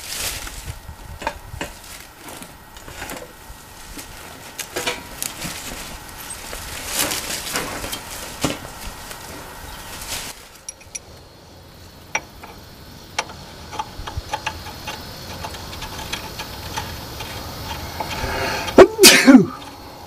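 Scattered metal knocks, clinks and rattles as a wheeled floor jack and tools are moved about, with a loud, short burst that falls in pitch near the end.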